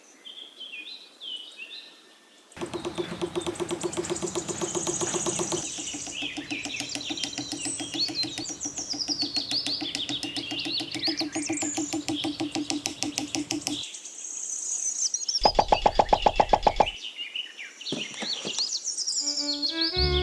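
Birds chirping and tweeting throughout, over a rapid buzzing rattle that starts about two and a half seconds in and stops near the fourteen-second mark. A louder, shorter buzz follows a second and a half later.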